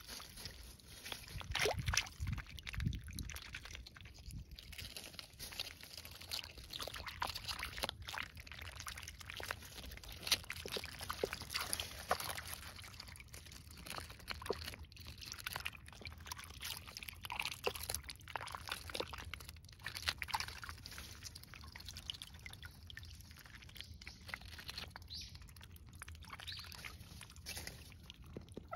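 Call ducks dabbling in a shallow tub of water and biting at cabbage leaves: small splashes and sloshing water with many irregular bill clicks.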